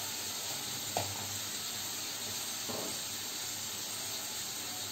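Papaya pieces and onions frying in oil in a kadai over a low gas flame, a steady sizzle, with a brief knock about a second in.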